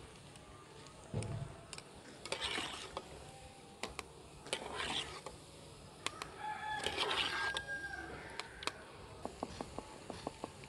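A rooster crowing once in the background, about six seconds in, with shorter fowl calls earlier. Near the end comes a run of quick light metal taps, as a ladle knocks batter through a slotted spoon into the frying oil.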